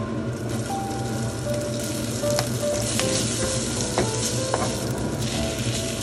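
Sliced green onion sizzling in hot chili oil in a stainless steel pan. The sizzle swells about half a second in, as the onion hits the oil. A wooden spatula stirs it, with a few sharp clicks against the pan near the middle.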